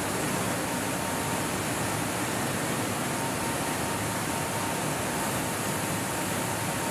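Steady rushing air and spray in an automated car-body paint booth, with a faint steady high tone running through it.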